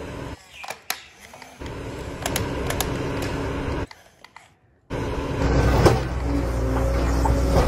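Small electric motors and plastic gearing of a toy RC excavator whirring, with scattered plastic clicks and clatter. The sound cuts out suddenly twice and comes back louder and steadier near the end.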